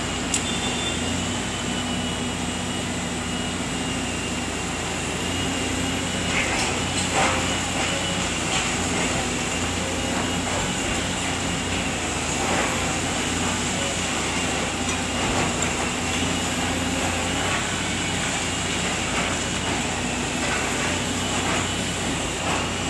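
Tracked demolition excavator running steadily, its diesel engine and hydraulics droning with a constant high whine, with a few sharp clanks and knocks along the way.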